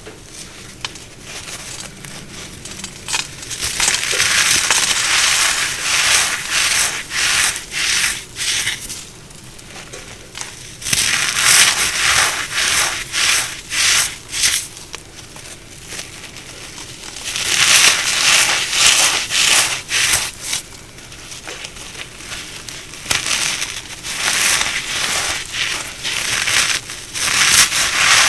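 Brittle cornstarch crunchies being crushed, crackling and crumbling in four stretches of dense crunching, with quieter crumbly rustling between them.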